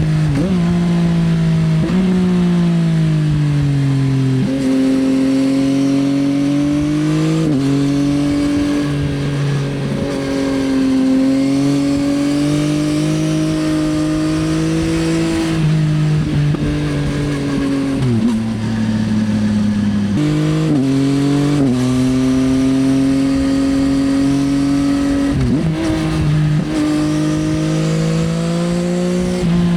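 Yamaha XSR900's CP3 inline-three running through an Akrapovič Racing Line exhaust while riding. The engine note climbs slowly in each gear, drops sharply at upshifts and jumps up at a few downshifts.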